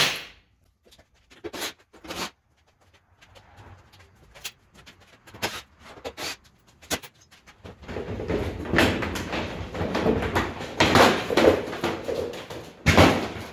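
Van's plastic front bumper cover being unclipped and pulled off: scattered clicks and knocks, then a louder stretch of rattling and scraping plastic, with a sharp knock near the end.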